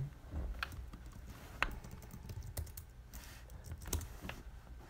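Typing on a computer keyboard: a handful of separate key clicks at irregular intervals.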